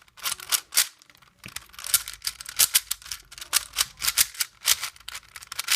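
Plastic V-Cube 4x4 puzzle cube being turned fast: rapid, irregular clacking of its layers, several clicks a second.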